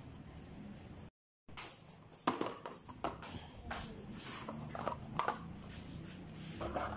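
A run of irregular light clicks and knocks, starting about two seconds in, after a brief cut to total silence about a second in.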